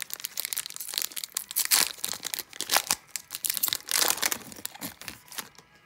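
Foil wrapper of an Upper Deck hockey card pack crinkling and tearing as it is ripped open by hand, a dense irregular crackle that stops shortly before the end.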